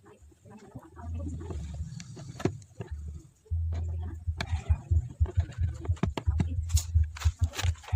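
Scattered clicks and taps of a screwdriver and hand working the screws of a speaker's horn mounting plate, over a low, choppy rumble that grows louder after a few seconds.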